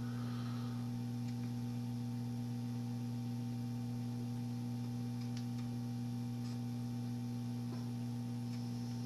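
Steady low electrical hum with faint higher overtones, broken by a few faint ticks.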